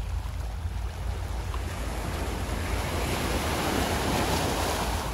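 A small sea wave breaks and washes up the shore close to the microphone, its rush swelling in the second half. A steady low rumble of wind on the microphone runs underneath.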